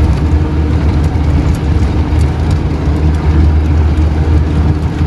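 Jeep engine running steadily as it drives over a rough, rocky dirt mountain track, heard from inside the cab as a continuous low drone, with a few faint rattles.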